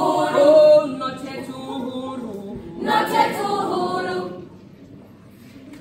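A girls' choir singing a cappella in harmony, the closing phrases of a song: a loud chord at the start that fades, a last swell about three seconds in, and the singing stops about four and a half seconds in.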